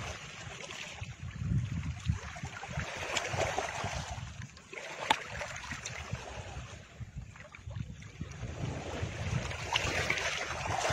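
A rushing noise without a clear pitch that swells and fades every second or two, like surf or wind, with a single sharp click about five seconds in.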